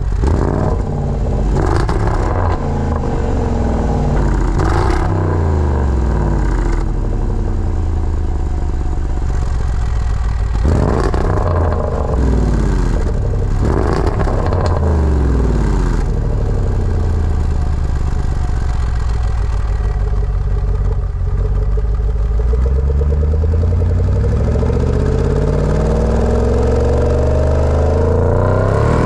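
Jaguar F-Pace SVR's supercharged 5.0-litre V8 heard at its stock quad exhaust tips, blipped repeatedly in short revs that rise and fall back to idle. Over the last several seconds the revs climb slowly and are held high.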